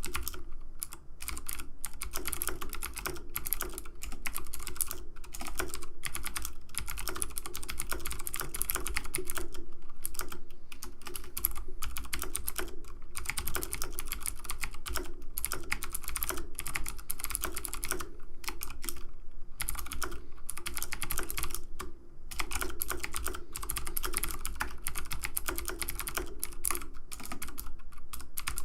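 Keyboard keys clicking rapidly and continuously, with brief pauses, over a steady low hum.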